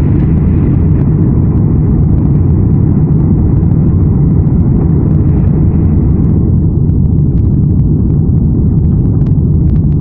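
Cabin noise inside a Boeing 737-800 on final approach with flaps extended: a loud, steady low rumble of its CFM56-7B engines and airflow over the fuselage.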